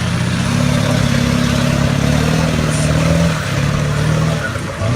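Ford 7.3L Power Stroke V8 turbodiesel engine running under load, its pitch rising and easing off a few times as the throttle changes, with a short dip near the end.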